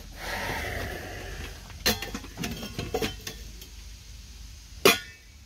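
Metal clinks and knocks of metalware being handled, several sharp strikes with the loudest clack near the end.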